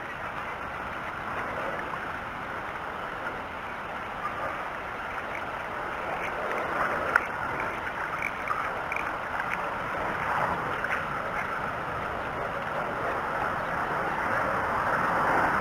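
Steady outdoor noise of wind and water at a river-mouth shoreline, slowly growing louder toward the end, with a single click about halfway through and a few faint short high tones just after it.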